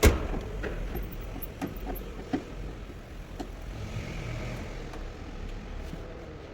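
Car workshop noise: a sharp bang at the start, then scattered knocks over a steady low rumble of vehicles.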